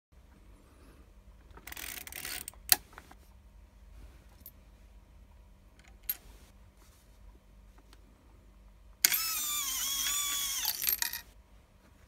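Cast-iron mechanical coin bank being worked: a sharp metal click near the third second and a lighter click as a coin is set on the lever, then about two seconds of loud, ringing metallic scraping as the mechanism moves and the coin goes in.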